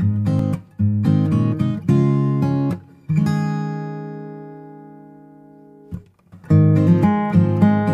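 Background music: acoustic guitar strumming and picking chords. About three seconds in, a chord is left to ring and fade away, and the playing starts again shortly before the end.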